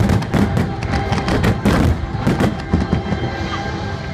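Fireworks display: a rapid series of bangs and crackles, with music playing underneath.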